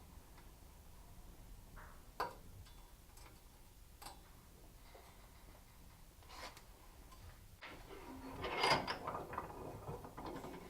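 Metal rifle parts and hand tools being handled on a workbench: a few single light clicks, then a short metallic clatter about eight seconds in.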